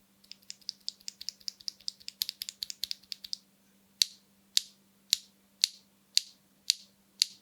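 Mechanical keyboard with HMX Macchiato linear switches being typed on: a quick run of clacking keystrokes for about three seconds, then, after a short pause, single keystrokes about every half second.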